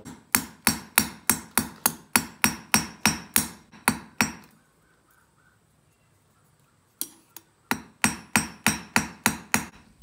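Small hammer tapping the steel pins of a butterfly knife's handle, peening them to assemble it: sharp metallic taps about three a second, in two runs split by a pause of about three seconds.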